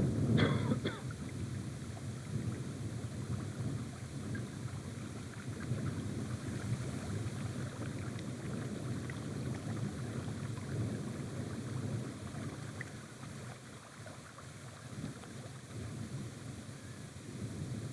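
Wind buffeting the microphone: an uneven low rumble that rises and falls, with a brief rustle about half a second in.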